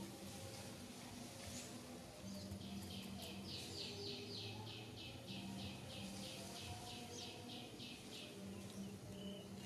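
A bird singing in the background: a fast run of short, repeated high notes, about four a second, lasting some five seconds through the middle, over a faint outdoor hum.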